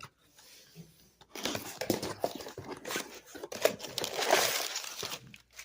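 Packing material in a shipping box crinkling and rustling as it is handled and pulled aside, starting about a second in and stopping just before the end.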